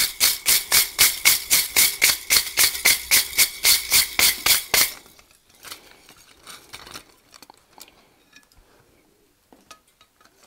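A stiff wire brush is scrubbed rapidly back and forth over hot forged steel on the anvil, about four or five strokes a second, cleaning the forge scale off the hook. The scrubbing stops about five seconds in, leaving only faint scattered ticks and scrapes.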